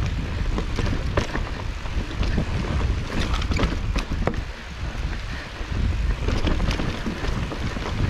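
Wind rumbling on the microphone while a Nukeproof Scout hardtail mountain bike is ridden over a rough, rooty and rocky trail, with frequent sharp clicks and knocks from the bike and tyres hitting roots and rocks.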